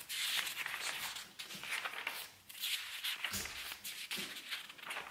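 Paper pages of a furniture-assembly instruction booklet rustling as they are leafed through by hand, in several short rustles.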